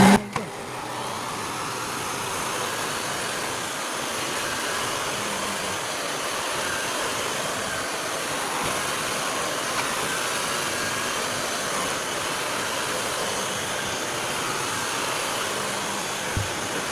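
Bagged vacuum cleaner running steadily with a freshly fitted dust bag, a constant motor and airflow hum. It cuts off near the end.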